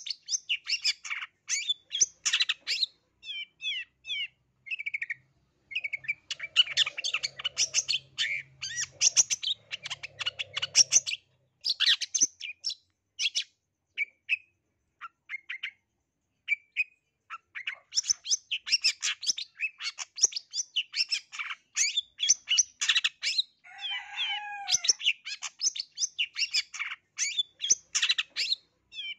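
Long-tailed shrike (cendet, black-headed 'blangkon' form) singing nonstop: a rapid, chattering song stuffed with mimicked snatches of other birds' calls. It comes in dense runs, broken in the middle by a few seconds of sparser single notes.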